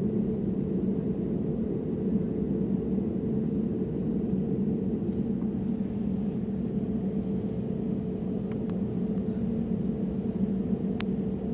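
Steady jet engine hum and rushing cabin noise inside an Airbus A320-family airliner on the ground, with a single light click near the end.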